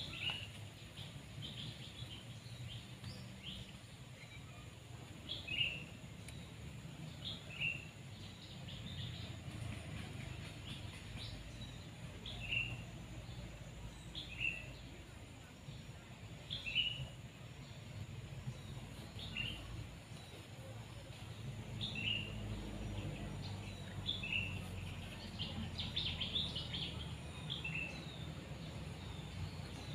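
A bird calling in short, high, falling chirps, one every second or two, with a quick run of notes near the end, over a steady low rumble.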